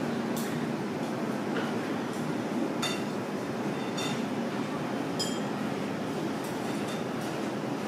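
Steady restaurant background noise, a low even rumble, with several light ringing clinks of tableware, the clearest about three, four and five seconds in.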